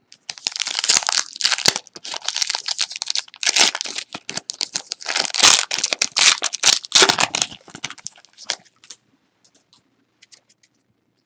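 Wrapper of a pack of 2015-16 Donruss basketball trading cards being torn open and crinkled, a dense crackle for about eight seconds that thins out into a few faint ticks.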